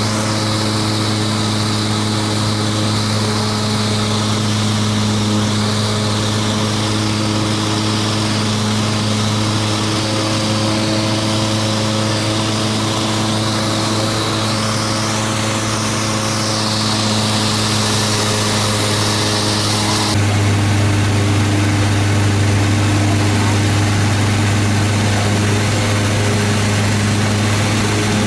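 Single-engine light aircraft's piston engine and propeller droning steadily in cruise, heard inside the cabin. The drone steps slightly louder about twenty seconds in.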